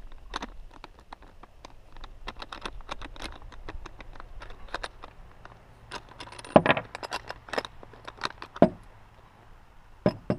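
Small metal parts of a bicycle seatpost's saddle clamp clicking and rattling as the saddle is worked free and off the old post, with two louder knocks in the second half.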